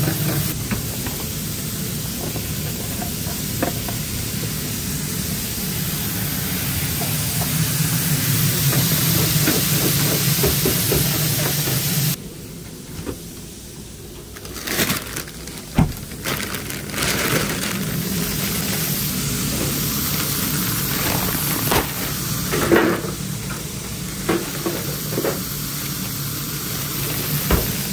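Steady sizzling hiss of a commercial kitchen, with fries frying in the deep fryer, over a low hum. About twelve seconds in the noise drops sharply for a couple of seconds, then comes back with scattered clicks, knocks and rustling of plastic bags of frozen food.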